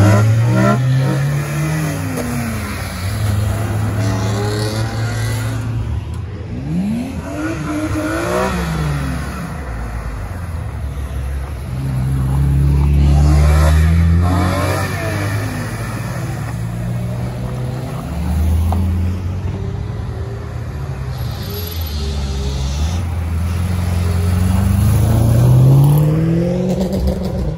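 BMW cars driving past one after another, engines revving up with a rising note several times over a steady engine drone.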